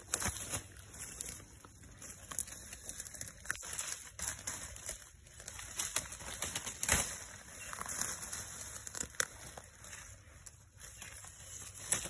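Dry leaves, twigs and undergrowth rustling and crackling as they are pushed aside, with scattered sharp snaps and clicks at irregular moments.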